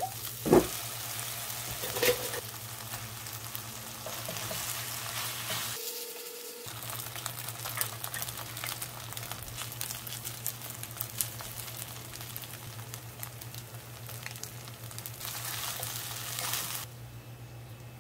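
Fried rice sizzling and crackling in a nonstick frying pan as a silicone spatula stirs and scrapes through it, with an egg frying in the rice. There is a sharp knock about half a second in, and the sizzle dies down near the end.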